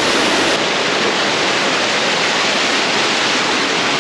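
Waterfall: water pouring down in a loud, steady rush.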